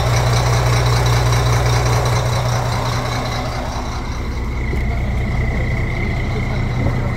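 Fishing boat's engine idling, a steady low hum that has been left running and not switched off.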